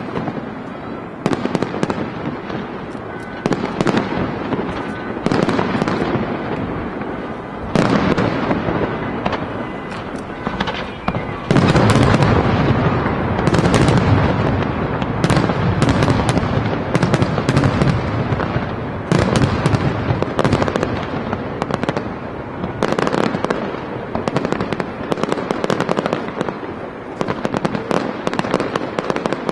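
Aerial fireworks display: shells and cakes bursting in rapid volleys, the bangs overlapping into a near-continuous barrage that grows densest and loudest a little after a third of the way in, then continues in volleys.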